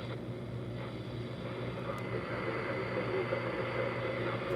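AM static from a small clock radio's speaker as it is tuned between stations: a steady hiss with a low hum and a faint steady whistle.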